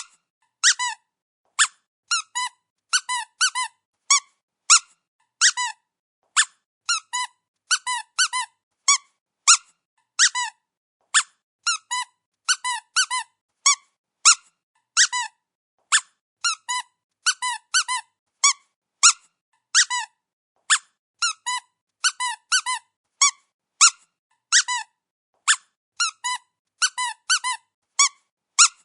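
Squeaky dog toy squeezed over and over: short squeaks coming singly and in quick runs of two to four, with brief silences between.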